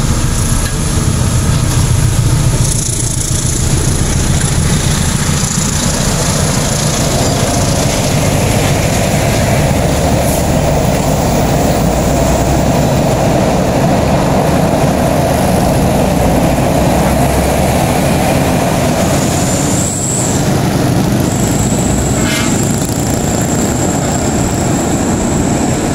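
Road traffic: trucks and motorcycles passing close by on a mountain road, a steady loud engine and tyre rumble.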